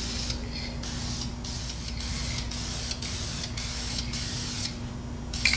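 Aerosol can of Australian Timber Oil spray stain hissing as it is sprayed: two short bursts, then one long spray of about three seconds that stops shortly before the end.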